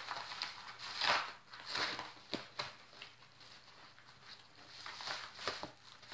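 Padded paper mailer being opened and handled: a series of short crinkling rustles, the loudest about a second in.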